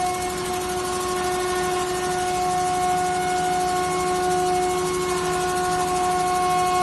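HSD spindle of a 4-axis CNC wood router running at high speed while milling a wooden block. It gives a steady high whine over the noise of the cutter chewing through the wood.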